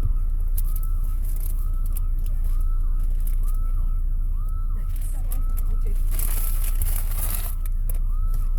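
Bank alarm siren wailing in a repeating rising-and-falling 'woo', about one whoop every two-thirds of a second, heard faintly over the steady low rumble of an idling car engine. A brief hiss comes about six seconds in.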